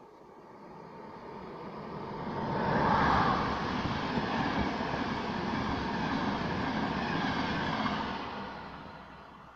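Passenger train running through the station at speed. The sound builds as the locomotive approaches and is loudest about three seconds in, then holds as a steady rush and rumble of the coaches going by, and fades near the end as the train goes away.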